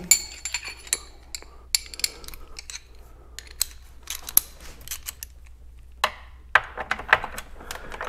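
Metal clinks and clicks of a socket wrench, extension and 10 mm socket being handled and fitted together, a few of the first clinks ringing briefly.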